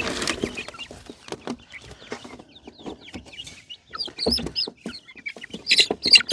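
Young chickens peeping and clucking in short, scattered calls, with a few knocks and rustles among them.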